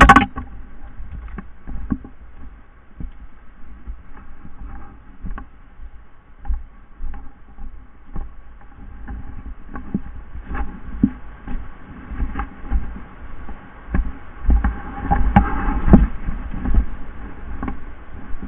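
Footsteps and rustling through dry brush and branches, with irregular knocks and scrapes of handling noise on a body-worn camera, growing busier and louder in the second half.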